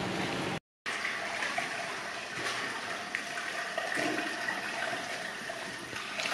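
Water sloshing and splashing in a plastic basin as chunks of raw meat are handled in it, over a steady rushing water-like noise, with a few faint short splashes; the sound drops out completely for a moment just under a second in.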